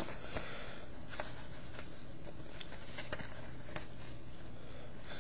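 Trading cards being handled and flipped through by hand: light, irregular clicks and slides of card stock.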